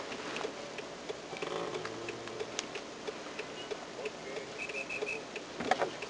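Faint room background with scattered small clicks and ticks.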